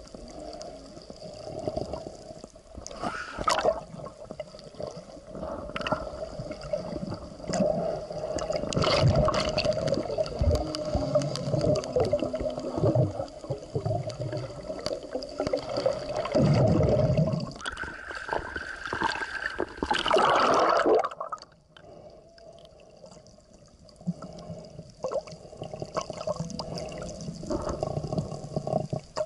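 Underwater sound picked up by a camera held just below the sea surface: muffled sloshing and gurgling of water with a steady low hum underneath, in uneven louder surges that drop away for a few seconds about three quarters of the way through.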